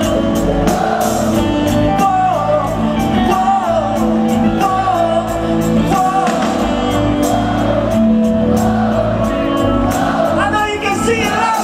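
Live rock band playing with a lead singer's vocal line over electric guitars, keyboard and a steady drum beat.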